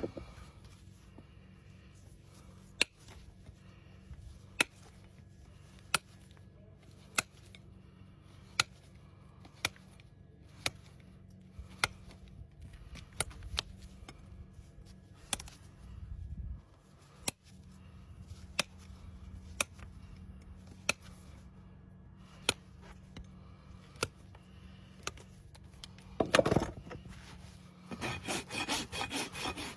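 Horse's hoof being trimmed: a run of sharp single clicks about every second and a half as the tool cuts the hoof, then a hoof rasp filing the hoof in quick back-and-forth strokes near the end.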